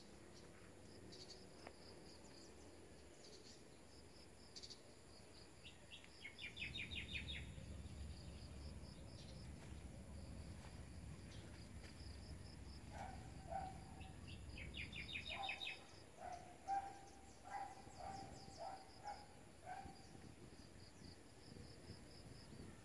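Birds chirping faintly: high chirps repeating throughout, two short fast trills, and a lower call repeated several times in the second half.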